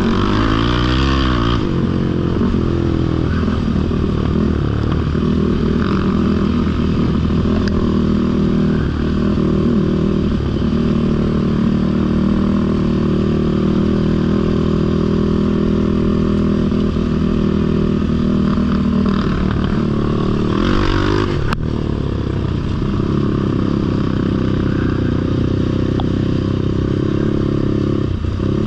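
Sport ATV engine running while being ridden, its pitch rising and falling with the throttle, quick swings near the start. A single sharp click about three quarters of the way through.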